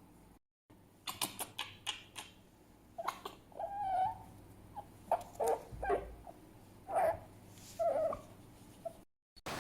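Fennec fox vocalizing: a quick run of sharp, clicking chirps, then a series of short, pitched yips and whines spaced irregularly, roughly a second apart.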